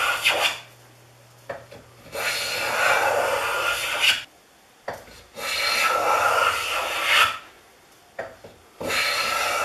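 Stanley S18 steel block plane taking strokes along the edge of a walnut board and cutting fine shavings. One stroke ends about half a second in, two full strokes of about two seconds each follow, and another begins near the end, with light knocks as the plane is set back for each new stroke.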